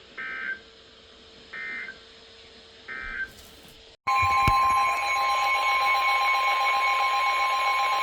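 Emergency Alert System signalling: three short bursts of SAME digital data about a second apart, the end-of-message code closing one warning. About four seconds in, the loud, steady two-tone EAS attention signal begins for the next severe thunderstorm warning.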